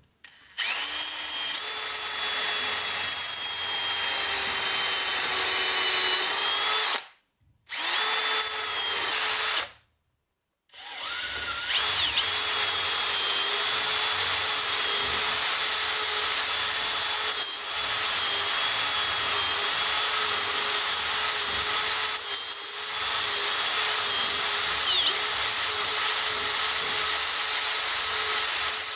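Electric hand drill boring a long twist bit into a block of bubinga wood, its motor whining steadily under load. It stops about a quarter of the way in, runs again briefly, stops once more, then runs on with a few brief dips in speed.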